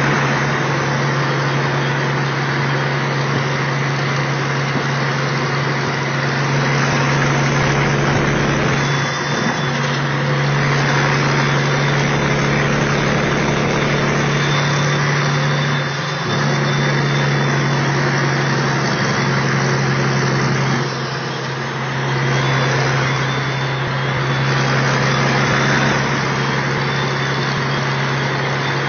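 Kenworth T600A's Caterpillar diesel engine running steadily while driving, heard from inside the cab: a constant low engine hum over road and tyre noise. The sound dips briefly three times.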